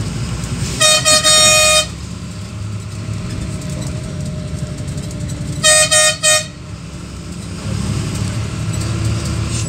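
Steady low rumble of a moving vehicle heard from inside the cabin, broken by a vehicle horn: one blast of about a second near the start, then three short toots around six seconds in.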